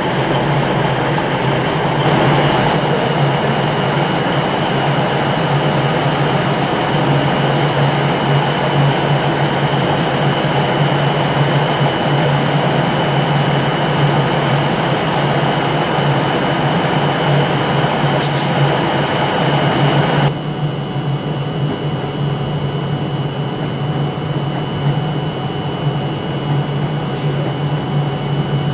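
Diesel multiple units in the station: a Class 142 Pacer railbus runs in with a steady engine drone, with a single sharp clank near the end of its run. After an abrupt change about twenty seconds in, a Class 185 diesel unit is heard arriving.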